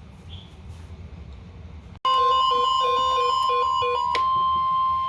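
Faint low hum, then about two seconds in an emergency alert tone starts suddenly: a steady single-pitch tone near the National Weather Service's 1050 Hz alert frequency, with a quick run of electronic beeps over it for about two seconds, after which the steady tone carries on alone. It is the alert signal that leads into a new National Weather Service message.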